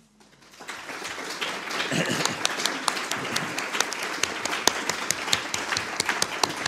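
Audience applauding: dense hand-clapping swells in about half a second in and carries on steadily.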